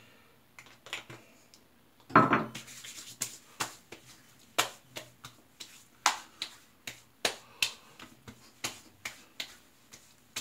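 Hands patting and slapping aftershave onto freshly shaved skin: a run of short, sharp pats, roughly one or two a second, with a louder knock about two seconds in.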